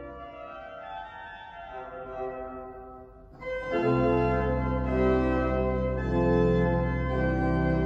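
Organ music in slow held chords. It is soft at first; about three and a half seconds in, a deep bass enters and the playing grows fuller and louder.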